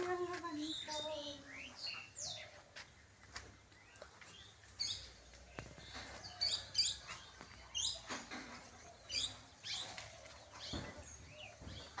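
Birds chirping in short, high calls scattered through, more of them after the middle. In the first couple of seconds a drawn-out voice slides down in pitch and fades, and a few sharp clicks come here and there.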